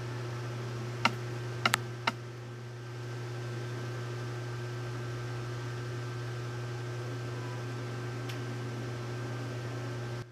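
A steady low hum over a background hiss, with a few sharp clicks in the first two seconds.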